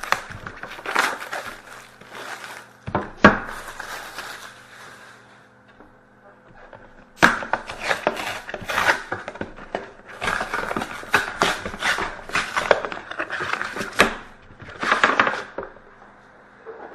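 A sealed hockey card box being opened by hand: plastic wrap crinkling and tearing and cardboard scraping in irregular bursts, with a lull a few seconds in before a longer busy stretch.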